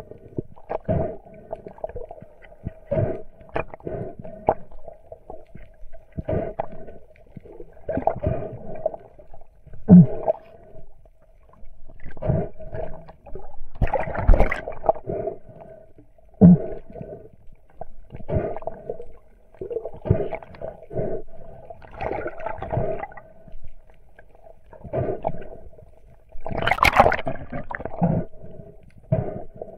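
Underwater sound through an action camera's housing as a freediver swims: uneven swishing and rushing of water against the housing, roughly once a second, over a steady hum. The loudest rush comes near the end.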